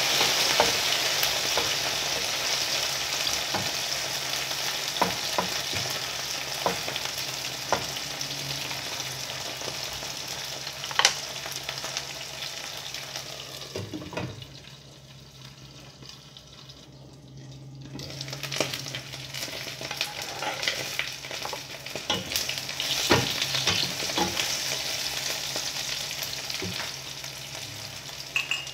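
Sliced eggplant sizzling in hot oil in a pan, stirred with a wooden spatula that scrapes and taps against the pan now and then. About fourteen seconds in, the sizzle drops sharply for a few seconds while a glass lid covers the pan, then the frying and stirring pick up again.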